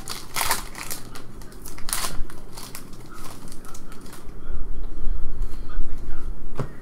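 Foil wrapper of a trading-card pack crinkling sharply as it is torn open, followed by cards being handled, with low bumping rumbles from about four seconds in.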